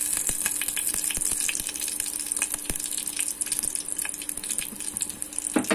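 Hot oil sizzling and crackling with scattered sharp pops as a tempering of mustard seeds, green chillies and garlic fries. A brief louder sound comes at the very end.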